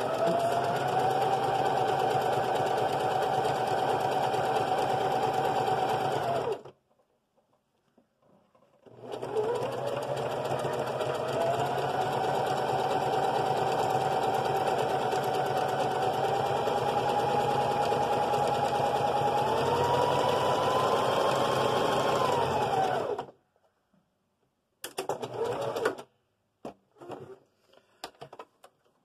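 Singer electric sewing machine running a zigzag stitch: one run of about six seconds, a pause, then a longer run of about fourteen seconds whose motor pitch rises near its end as it speeds up before stopping. A few short bursts of stitching follow near the end.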